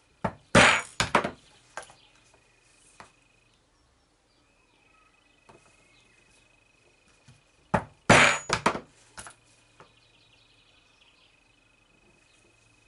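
A hammer striking a steel pricking iron to punch stitching holes through leather. The strikes come in two quick runs of several blows each, the first a little under a second in and the second about eight seconds in, with a few lighter taps between.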